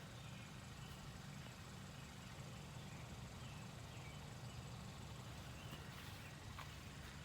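Faint, steady low hum of outdoor background noise, with a few faint short high chirps scattered through it.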